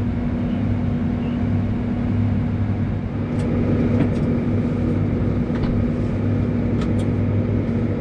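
New Holland loader tractor's diesel engine running steadily, heard from inside the cab, with a few short sharp clicks over it in the second half.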